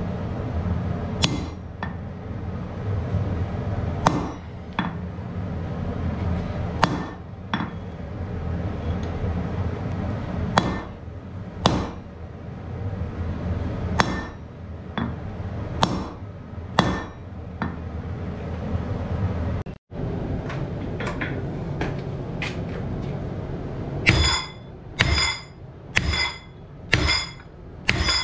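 Hand hammer striking red-hot steel reinforcement bar on an anvil, a single blow every second or two, each ringing briefly, over a steady low hum. Near the end comes a run of five clearer-ringing blows about one a second.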